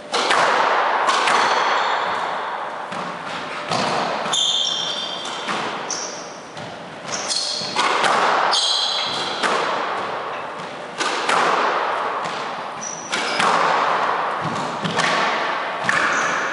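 Squash rally: sharp racket strikes and ball smacks against the court walls, roughly one a second, each echoing in the enclosed court, with short high squeaks of court shoes on the wooden floor.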